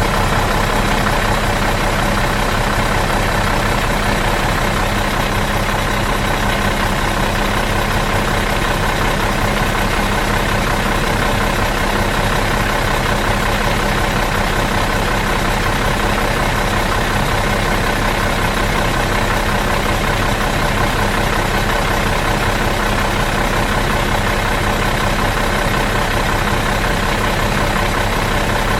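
Bus engine idling steadily in neutral, an even unchanging hum.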